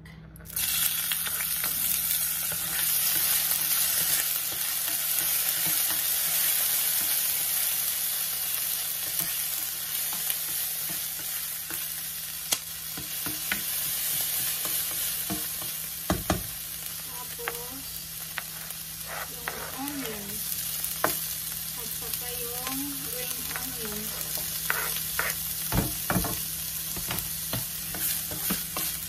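Minced garlic dropped into hot vegetable oil in a nonstick frying pan, sizzling suddenly about half a second in, loudest at first and then settling to a steady sizzle. A spatula stirs and scrapes it around the pan, with a few sharp knocks against the pan.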